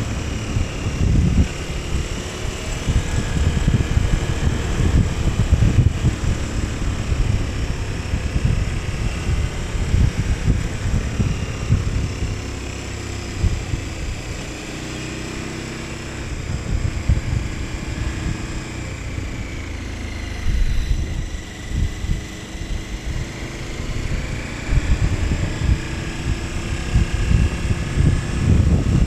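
KTM 1290 Super Adventure S's V-twin engine running under way, its pitch rising and falling with throttle and gear changes. Wind buffets the microphone throughout.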